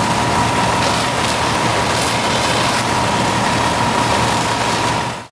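Fire truck engine running steadily while it pumps water to an aerial ladder stream, with a steady whine and a constant rushing noise. The sound fades out quickly near the end.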